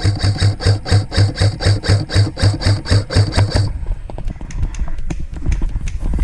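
Running footsteps heard through a body-worn camera, heavy thudding footfalls at about four a second with gear rattling on each stride, stopping about three and a half seconds in. Light clicks and rustling of kit follow.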